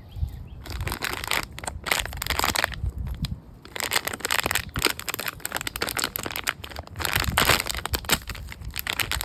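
Packaging crinkling and crackling in irregular bursts as a blind-box toy is unwrapped by hand.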